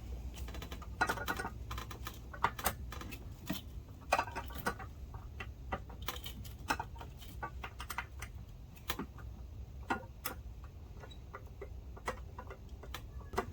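Scattered light metallic clicks and clinks of a wrench on the brake line fittings as the lines are undone from the master cylinder, irregular rather than rhythmic.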